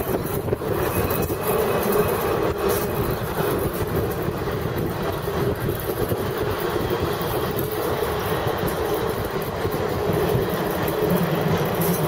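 A train of vintage passenger cars rolling past on the rails: steady wheel-on-rail noise, with a few faint clicks near the start.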